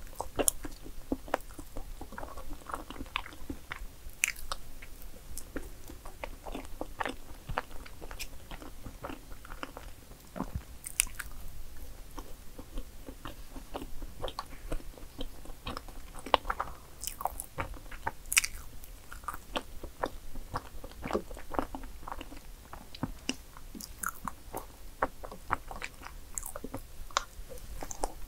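A person chewing soft chocolate layer cake close to the microphone, with many short mouth clicks.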